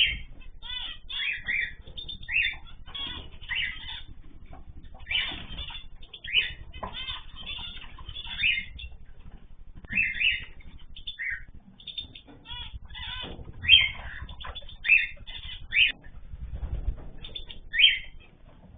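Cage birds in an aviary calling and chirping over and over, short calls following one another every fraction of a second, with a few louder calls standing out.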